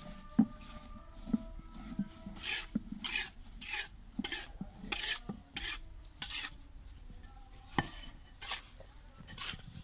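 Gritty scraping of a round cement disc being worked back and forth against the sand-and-cement ground, in a run of rasping strokes about every half second, after a few dull knocks. One sharp knock sounds near the end, as a metal mould is set down.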